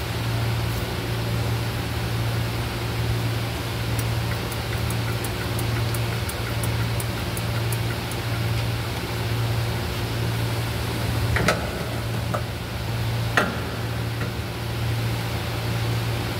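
Steady low hum of workshop machinery with an even hiss, while two sharp knocks about two seconds apart ring out near the end as tools strike the underside of the vehicle.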